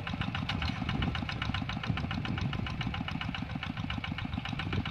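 Two-wheel walk-behind hand tractor's single-cylinder diesel engine running with a steady, rapid beat as it pulls a moldboard plough through wet soil, cutting ridges.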